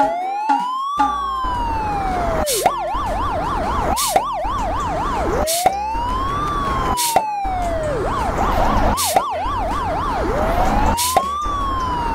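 Police car siren sound effect alternating a slow rising-and-falling wail with a rapid yelp, three wails and two yelps in turn. Short sharp clicks come every one and a half to two seconds.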